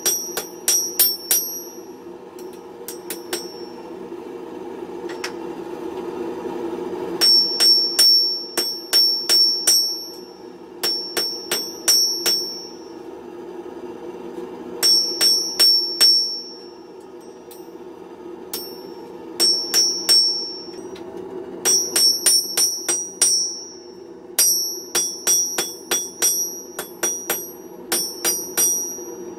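Hand hammer striking a red-hot 1 cm round steel bar on an unanchored anvil, each blow followed by a clear, high, bell-like ring. The blows come in runs of about two a second, with short pauses between runs. A steady low hum sounds underneath.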